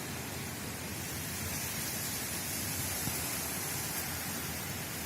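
Steady rain falling in a downpour, an even continuous hiss.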